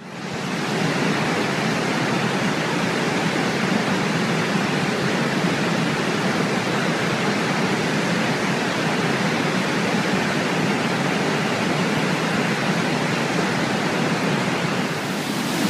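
Waterfall: a steady, loud rush of falling water that fades in over the first second.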